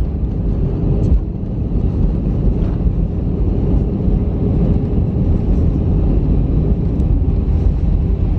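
Cabin noise of an Airbus A320 rolling along the runway after landing: a loud, steady rumble of jet engines and airflow, with a faint steady hum over it.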